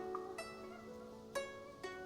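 Soft background music of plucked string notes, a new note sounding about every half second.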